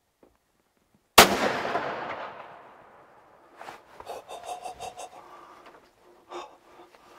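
Muzzleloader rifle shot about a second in: one sharp, loud crack that rolls away in a long echo over about two seconds.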